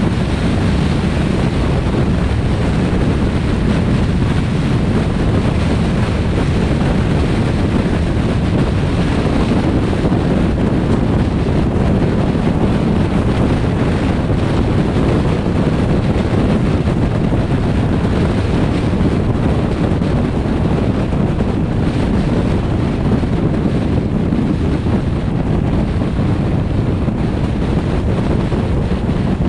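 Steady wind and road rumble from a car driving on a highway, with wind rushing over the microphone.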